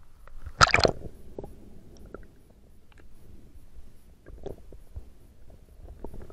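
A swimmer's body and camera splashing through the lake surface in a short, loud splash about half a second in as the diver goes under. After that, muffled underwater sound with scattered faint clicks and gurgles.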